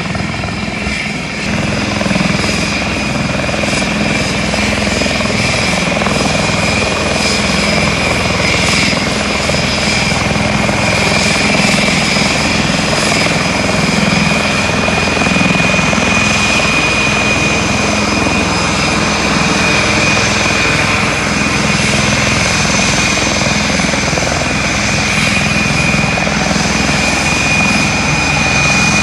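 Military helicopter running steadily, its turbine engines giving a high whine over the rotor noise. It gets louder about a second and a half in, then holds steady.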